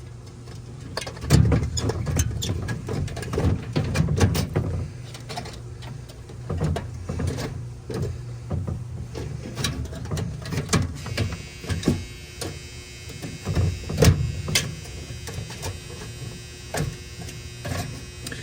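Irregular clicks, knocks and scrapes as a Romex wire drain heater is pushed into a side-by-side refrigerator's freezer drain hole, bumping against the plastic panels, over a steady low hum.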